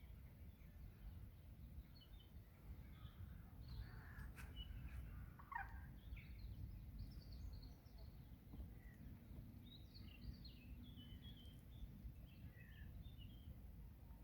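Faint birds chirping and calling on and off, with one louder call about five and a half seconds in, over a steady low background rumble.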